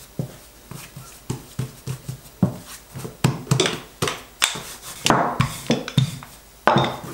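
Dough being pressed flat by hand and rolled out with a wooden rolling pin on a silicone baking mat: a string of irregular soft knocks and thumps.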